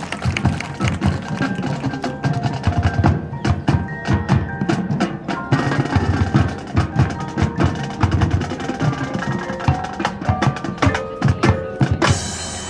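Marching band percussion playing: a rapid run of drum and woodblock-like strikes, with mallet percussion such as bells and marimba ringing out notes.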